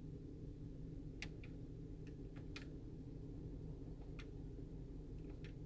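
Quiet car cabin with a steady low hum and a few faint, irregular clicks from the seek button of a 2014 Jeep Patriot's factory radio being pressed. No audio comes from the radio as it steps through FM stations, which is the fault being shown.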